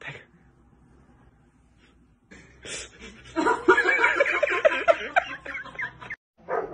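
A person laughing in quick, rapid snickers, starting about two and a half seconds in and getting louder, then stopping abruptly near the end.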